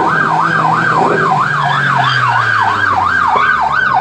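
Police car siren warbling rapidly up and down, about two rises and falls a second, with a low steady hum underneath that slowly drops in pitch.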